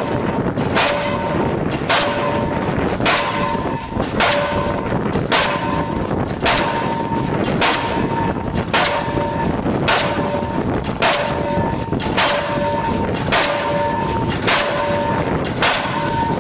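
Link-Belt diesel pile hammer running steadily, firing and striking the pile about once a second, each loud blow followed by a brief metallic ring.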